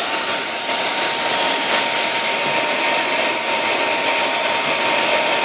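Handheld hair dryer blowing steadily at speed: a rush of air with a steady whine from its motor.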